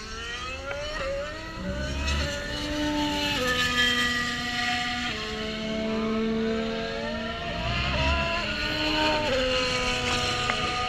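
Several racing engines accelerating hard through the gears on the circuit. Each engine's pitch climbs and then drops back at every upshift, with more than one running at once.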